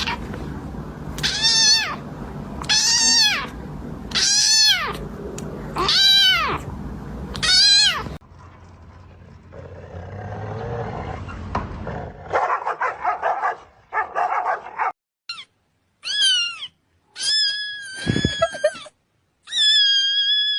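Cat meowing repeatedly: five rising-and-falling meows about a second and a half apart, then after a short lull several more, some of them long and drawn out.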